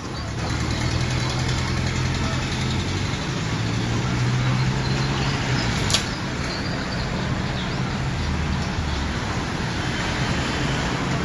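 An engine running steadily at a low hum, with one sharp click about six seconds in.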